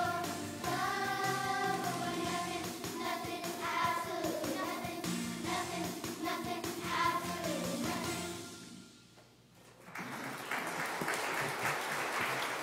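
Group singing with musical accompaniment that fades out about eight and a half seconds in; after a short pause, applause starts up and runs on steadily.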